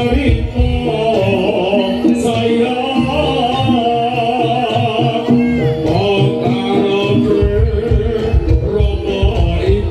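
Live East Javanese jaranan (kuda lumping) music: hand drums beating a busy rhythm under held pitched tones and a wavering melody line.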